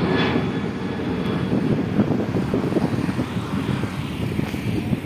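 Jet engines of a Boeing 737-800 airliner in flight, a steady low rumble that eases slightly near the end.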